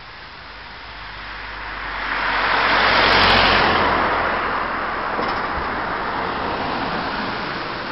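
A car passing close by on the road, its tyre and road noise swelling to a peak about three seconds in and then slowly fading away.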